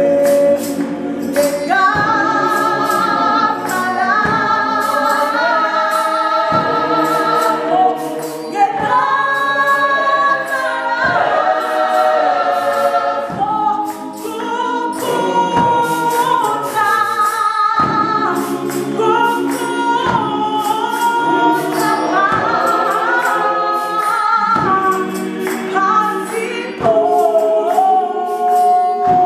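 Gospel choir singing a cappella, a female soloist leading over the choir's harmonies, with hand claps keeping the beat.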